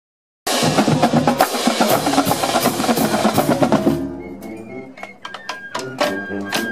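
Marching band drums playing, coming in suddenly about half a second in and dropping quieter about four seconds in, with sharp separate hits continuing.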